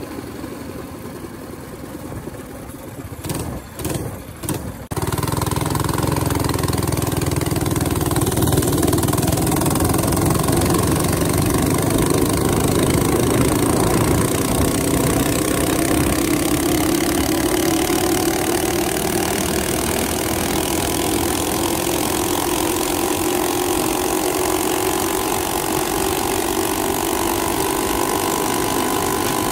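Coleman CT200U minibike's single-cylinder engine, fitted with a PWK 30 mm carburetor, running steadily while being ridden, with road and wind rush. It is quieter for the first few seconds, with brief dropouts, then cuts at about five seconds to louder, steady running.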